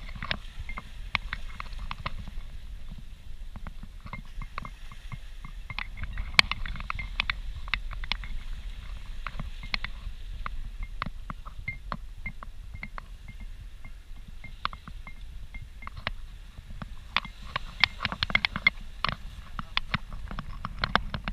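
Wind rumbling on the camera's microphone, with scattered sharp clicks and crackles that grow thicker near the end.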